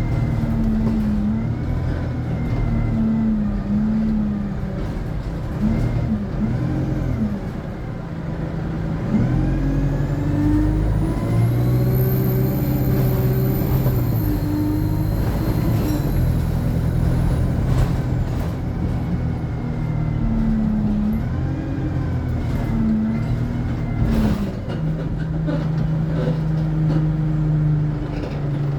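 ADL Enviro 200 bus's diesel engine pulling through its Allison automatic gearbox, the engine note rising and dropping back as it changes gear. A high turbo whine climbs about a third of the way in, holds, then fades, and there are a couple of short sharp noises later on.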